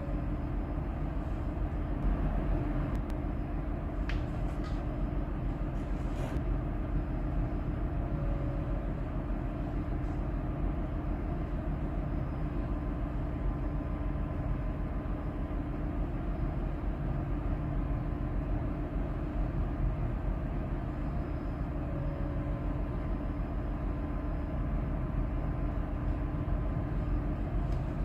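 Steady low rumble and hum of running shipboard machinery, with a faint droning tone over it. Two faint clicks come about four and six seconds in.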